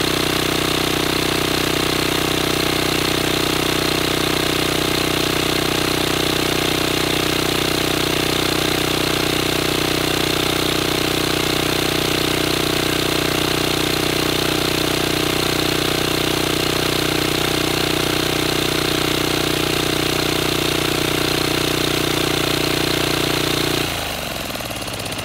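Turbocharged 10-horsepower Kohler diesel engine held at high revs, spinning the go-kart's rear tires in a smoking burnout through a CVT torque converter. The engine note stays steady, then near the end it drops off as the throttle comes off.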